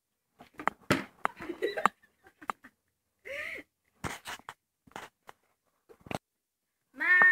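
Scattered short knocks and brief snatches of girls' voices and breath in a small room. Near the end a girl starts singing a held note.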